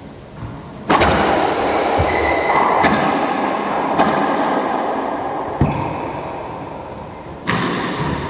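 A racquetball knocking and thudding against the court's floor and walls, with echo, several separate hits over a few seconds. A rushing noise starts suddenly about a second in and slowly fades under the hits.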